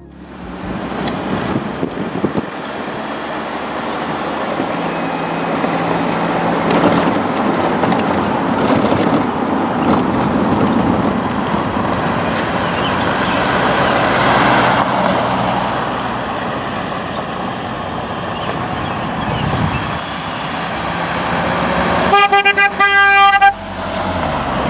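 Gazelle kit car with a 1.6-litre GM four-cylinder driving up and passing, its engine and tyre noise building as it approaches. Near the end, just as it passes, its horn gives a short steady-pitched honk.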